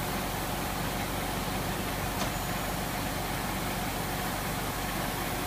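Heavy vehicle engine running steadily at a constant speed, with a faint click about two seconds in.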